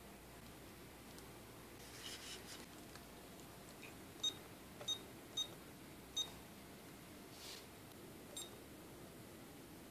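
Verifone card payment terminal's keypad beeping as a PIN is keyed in: four short high beeps in quick succession, one per digit, then a fainter beep about two seconds later as the green confirm key is pressed.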